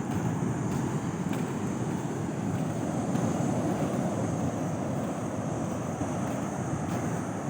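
Steady rushing of sea surf and wind on the microphone, with a faint steady high whine over it.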